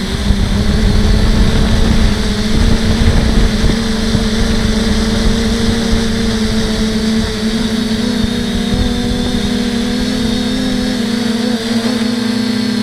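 FPV quadcopter's motors and propellers humming steadily, the pitch shifting a little with throttle. Heavy wind buffeting on the onboard microphone in the first few seconds.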